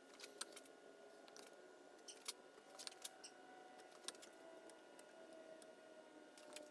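Faint, scattered clicks and taps of a glazing tool working compound around a glass pane in a wooden storm-door frame, irregular with a cluster in the first half, over a low steady room hum.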